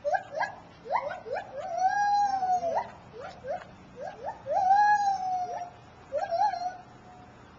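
Gibbon song: a run of short whooping notes, each sliding upward in pitch, broken twice, about two and five seconds in, by a longer drawn-out note that rises and then falls.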